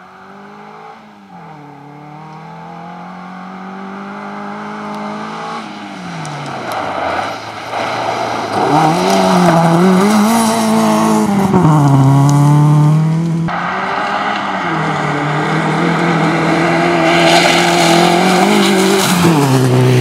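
Fiat Cinquecento rally car's engine at high revs on a gravel stage, its note rising and dropping again and again with gear changes and lifts, growing louder as the car comes close and passes. Loose gravel hisses and sprays from the tyres as it slides.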